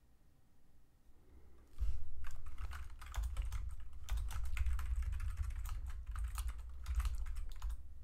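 Typing on a computer keyboard: a fast run of key clicks with dull low thumps under them, starting about two seconds in and stopping shortly before the end.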